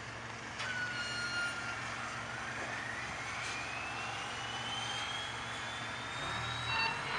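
Logo sound effect: a steady rushing hiss over a low hum, with a whine that starts about a second in and climbs slowly in pitch.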